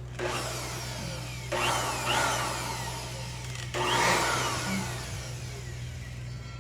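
Aerosol insecticide spray can hissing in three bursts, each starting suddenly and tailing off over a second or two, over a steady low hum.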